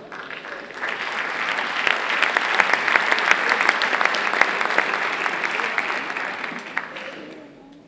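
Theatre audience applauding: many hands clapping, swelling about a second in and dying away near the end.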